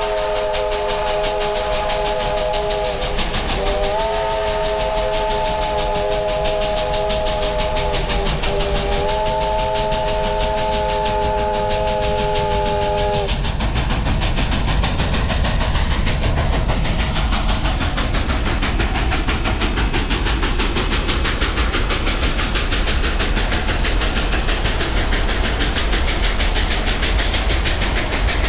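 McCloud River Railroad No. 18, a 1914 Baldwin 2-8-2 steam locomotive, sounding its steam whistle for the grade crossing: three long blasts, each a chord of several notes. After the whistle stops, the locomotive passes close by with a steady rush of steam and running gear.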